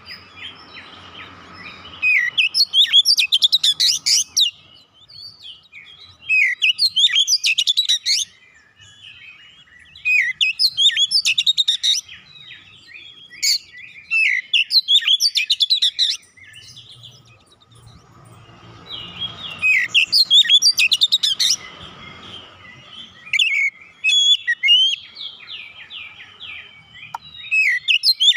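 Oriental magpie-robin (kacer) in full song: loud phrases of rapid, high whistles and trills, each a second or two long, repeated every few seconds, with softer warbling in between.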